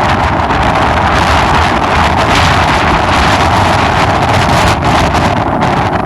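Strong tropical-storm wind blasting across the microphone: a loud, steady rush with a deep rumble underneath.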